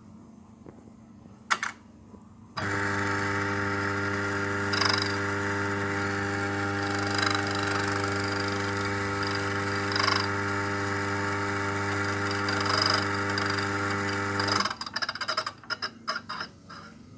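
Compak K3 Touch Advanced coffee grinder's motor running for about twelve seconds with a steady, pitched hum, a brief brighter swell rising out of it every two to three seconds; this is the noise the owner finds odd. The motor cuts off and a couple of seconds of irregular clicks follow. A single click comes just before the motor starts.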